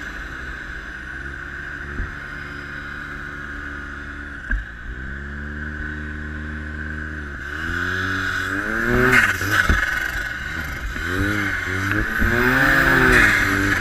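Arctic Cat XF 1100 Turbo snowmobile's turbocharged three-cylinder four-stroke engine under way, heard from the riding position. It runs fairly steadily at first with a brief dip, then revs up and down several times as the throttle is worked in the second half.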